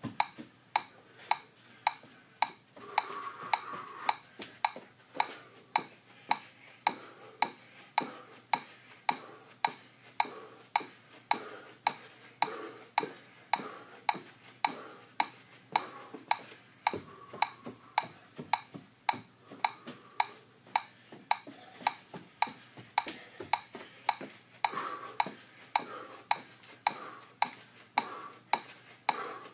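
Metronome clicking steadily at 108 beats per minute, a little under two clicks a second.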